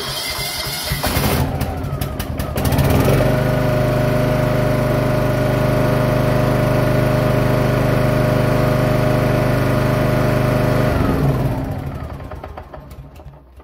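John Deere F525 lawn tractor engine cranked by its starter for about a second, catching and settling into a steady run about three seconds in, then shut off and running down near the end. This is the first run after a fresh oil change, to circulate the new oil before checking the dipstick.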